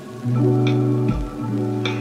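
Background music: held guitar and bass notes that change about a second in, with a few soft taps.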